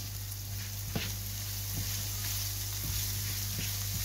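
Sliced onions and leeks sizzling in oil with spices in a non-stick frying pan, stirred with a plastic spatula that gives a few light scrapes and taps against the pan. A steady low hum runs underneath.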